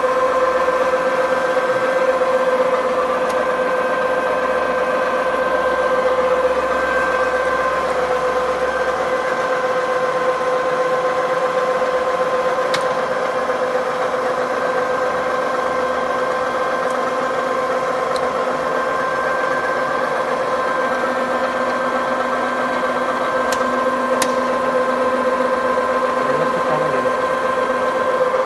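Pornitz PUN 2 universal milling machine running, its motor and gearbox giving a steady hum with a constant whine. A few faint clicks come through near the middle and later on.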